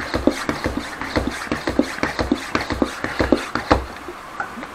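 Bicycle pump being worked fast, inflating a 26x4.0 fat-bike tyre: quick rhythmic pumping strokes, about four a second, that stop about four seconds in.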